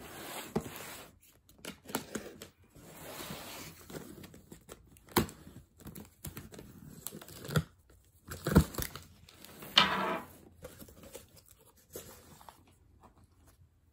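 Utility knife slitting packing tape along the seam of a cardboard shipping box, with scratchy cutting and a few sharp knocks against the box, then a louder ripping rasp about ten seconds in as the cardboard flaps are pulled open.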